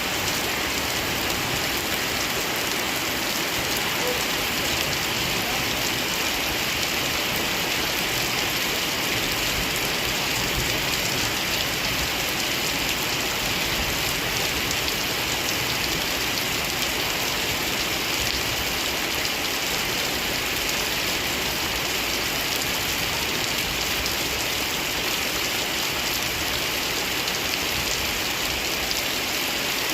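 Steady rain falling and hitting surfaces: an even hiss that holds without let-up.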